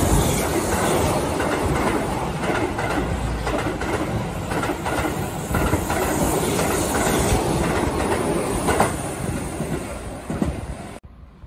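Keihan 8000-series limited express electric train running past close by, its wheels clattering over the rail joints with a loud rolling rumble. The sound drops off abruptly shortly before the end.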